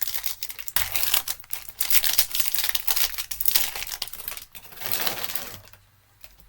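Wrapper of a 2021 Panini Chronicles football card pack being torn open and crinkled by hand, a dense crackling that fades away about five and a half seconds in.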